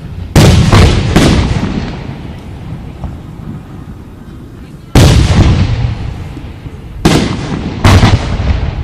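Aerial firework shells bursting with loud booms, six in all: three in quick succession at the start, one about five seconds in and two near the end, each trailing off in a rumbling echo.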